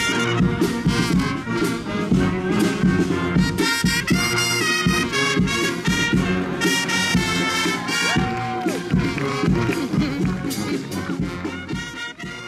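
Brass band music with trumpets, trombones and a steady drumbeat playing an upbeat tune, fading out near the end.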